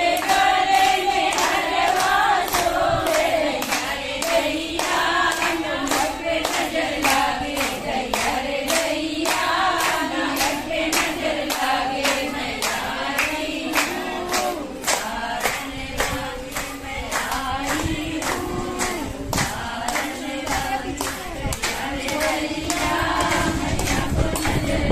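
A group of women singing together in chorus, with steady rhythmic hand clapping about twice a second.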